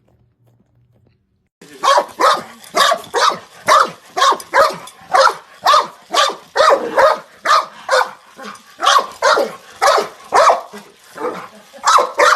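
A dog barking over and over in a fast, steady run of about three barks a second, starting suddenly after a second and a half of near silence.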